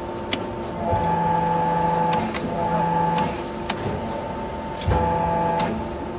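Press brake bending a Corten steel sheet: a steady machine hum, with two louder, whining press strokes of the ram, one about a second in lasting over two seconds and a shorter one near the end. Sharp metallic clicks come between the strokes.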